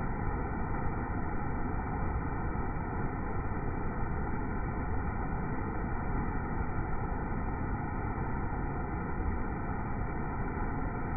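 Waterfall's rushing water played back in iPhone slow motion: a steady, deep, muffled rush with all the high end missing.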